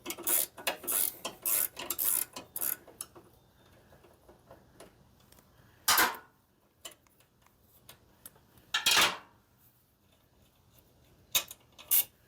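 Metal hand tools and hardware clinking as the saddlebag support bracket is unbolted from a motorcycle: a quick run of clicks for the first few seconds, then four separate sharp metallic clanks.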